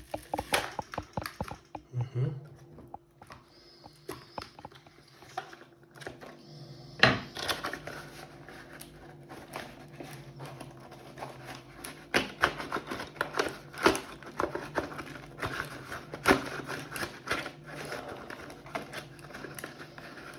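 Knife packaging being pried and pulled at by hand: irregular clicks, knocks and crinkling, the loudest about a third of the way in and again in the second half, as the tightly fixed knife is worked free.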